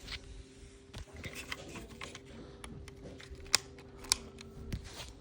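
Small plastic clicks and taps from handling a toy RC car's plastic remote control, with two sharper clicks a little past halfway.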